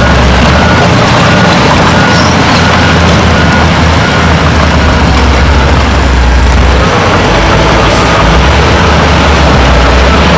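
Heavy diesel earthmoving machinery running loud and steady, a deep engine drone under a broad rumble. The drone drops briefly about seven seconds in and returns a second later.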